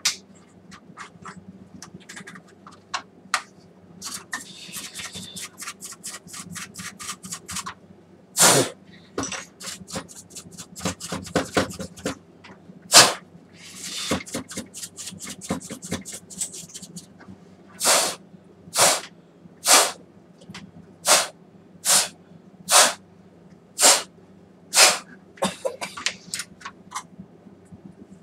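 Bristle paintbrush scrubbing dust off the opened projector's internal parts in quick scratchy strokes, with loud puffs of air blown over the parts. Near the end the puffs come about once a second.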